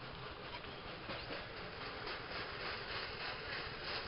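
Small rail trolley running along the track in the distance: a steady, even noise with faint rapid clicks.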